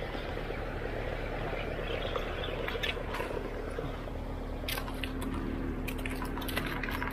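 Scattered clicks and crunches on gravel as a landed fish is swung ashore onto a stony path, over a steady low rumble. The clicks thicken after about four and a half seconds.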